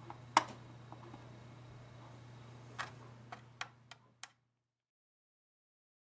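Several sharp clicks and taps from small hard parts and tools being handled while the HP-85 is taken apart, the first the loudest, over a low steady hum. The sound cuts off to dead silence a little past four seconds in.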